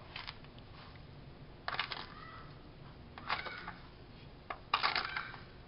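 A metal spoon scraping sugar out of a small plastic tub, and plastic tubs knocking on a stainless steel counter: four short bouts of scraping and clatter.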